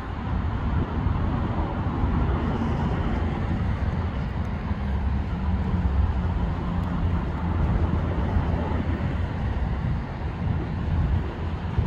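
Norfolk Southern diesel locomotives heading an approaching freight train, running with a steady low rumble and a faint engine drone.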